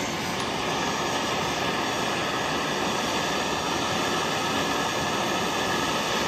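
Bernzomatic hand-held propane torch burning with a steady hiss, its flame heating a brass fuel-injection nozzle clamped in a vise.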